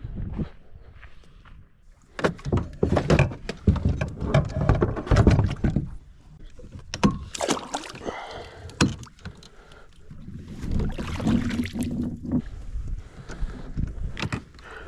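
Irregular knocks, clunks and rattles in bursts a few seconds long, with quieter pauses between.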